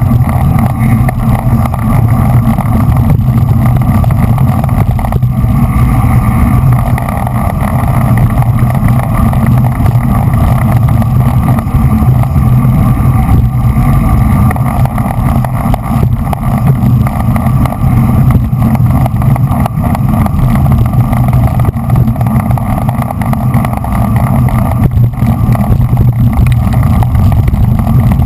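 Steady wind rush and road noise on the microphone of an action camera riding on a racing bicycle at speed.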